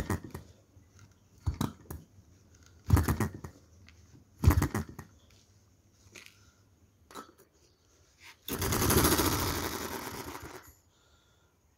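Small model hit-and-miss engine, valve seats freshly lapped, firing with sharp pops about every second and a half, four times, then coasting with a few light ticks. Near the end comes a louder rushing burst of about two seconds that fades away.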